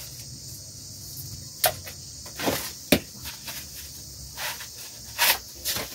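Dry maize husks being stripped from ears of corn by hand and with a small knife: a few sharp snaps and short crackling rustles of dry husk, over a steady high insect-like hiss.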